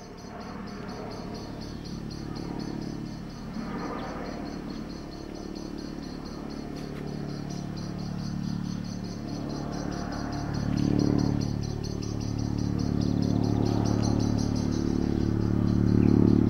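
Helicopter approaching overhead: a low, steady engine-and-rotor drone that grows steadily louder, swelling about two-thirds of the way through and again near the end. Insects chirp fast and evenly throughout.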